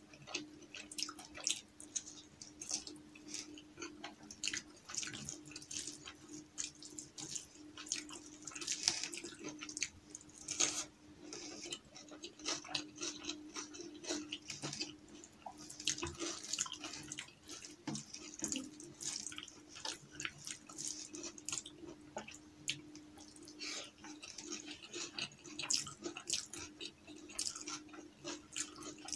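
Close-miked eating by hand: many short wet, sticky clicks and smacks as fingers work rice and dal and the mouth chews, over a faint steady hum.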